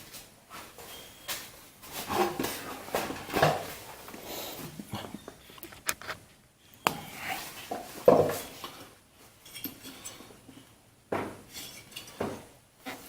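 Irregular knocks and metal clinks, about seven louder strikes, as a rubber mallet taps the cover of a Briggs & Stratton L-head engine to work it loose.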